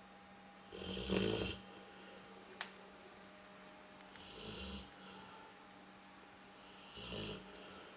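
Labrador retriever snoring in its sleep: three snores about three seconds apart, the middle one fainter and lower. A single sharp click comes between the first two.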